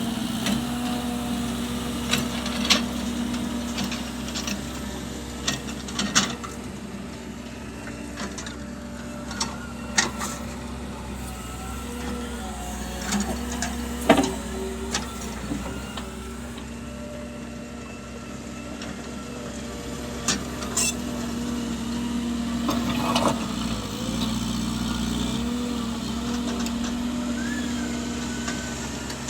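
Engine running steadily, with scattered knocks and clanks throughout.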